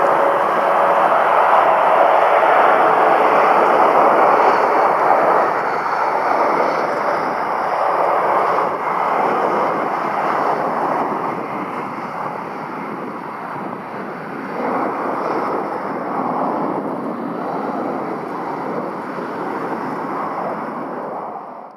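Airbus A318's CFM56 turbofan jet engines running at idle as the airliner taxis, a steady rushing jet noise that gradually gets quieter after about five seconds.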